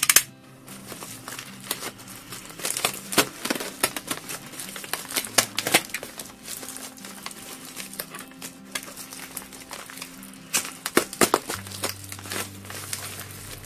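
Plastic bubble-wrap mailer crinkling and crackling as it is handled and cut open with a snap-off utility knife, in irregular sharp rustles, loudest at the start and again about ten to eleven seconds in.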